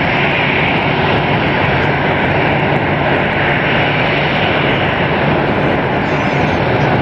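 Loud, steady jet aircraft engine noise: an even rush with a low hum underneath.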